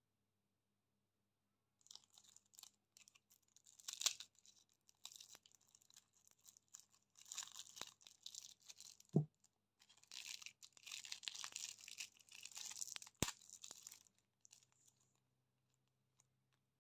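Thin plastic wrapping crinkling and tearing in soft spells as fingers pick at a small juice box, with two sharp knocks about four seconds apart, the first the loudest.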